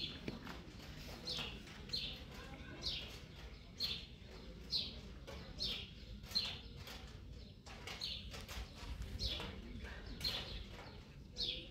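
A small bird chirping repeatedly: short, high, falling chirps about once a second, over a faint low rumble.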